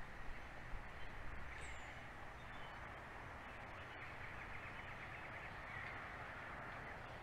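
Open-air ambience: a steady hiss of background noise, with a short high bird chirp about a second and a half in and a quick fluttering call a little after the middle.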